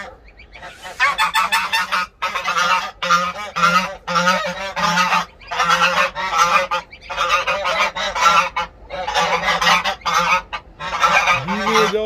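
Domestic geese honking over and over in a string of harsh calls, each about half a second to a second long, starting about a second in.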